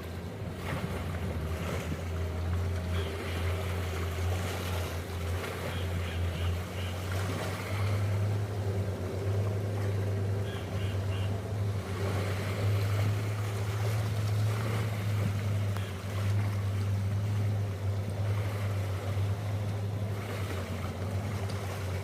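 A steady low engine hum, with wind and water noise over it.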